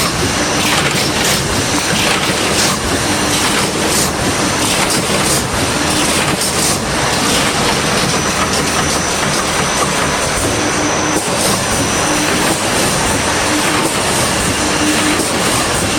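Automatic wire mesh welding machine running: a loud, steady mechanical clatter with sharp clicks and a regular beat of roughly one to two strokes a second as the line feeds and welds.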